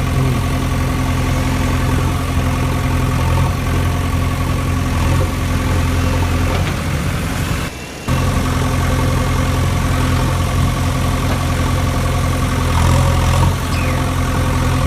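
Engine idling steadily, a constant low hum with several overtones. It cuts out suddenly for about half a second about eight seconds in, then resumes.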